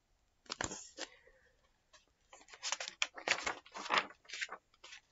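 Paper pages of a large picture book rustling and flapping as they are turned: a short burst about half a second in, then a longer run of crackly rustles in the second half.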